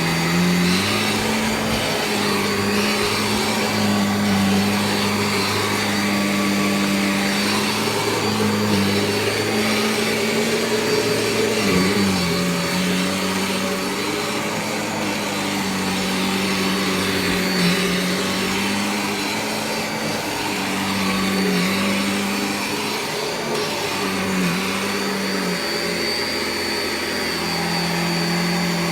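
Vacuum cleaner running steadily, its motor hum shifting slightly up and down in pitch every few seconds over a constant rush of suction noise and a thin high whine.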